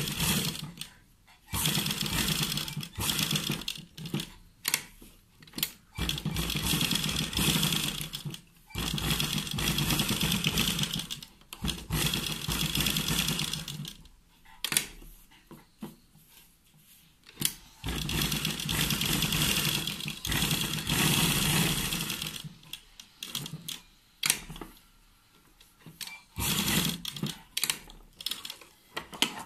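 Sewing machine stitching along the edge of a fabric sleeve, running in stop-start runs of a few seconds with short pauses between them, where there are a few clicks of fabric being handled and repositioned.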